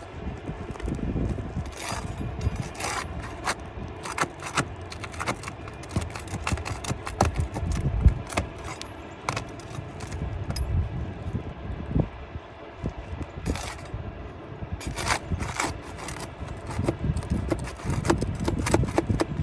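Roofing repair work on asphalt shingles: irregular metal clicks, knocks and scrapes of hand tools working fasteners and shingles loose.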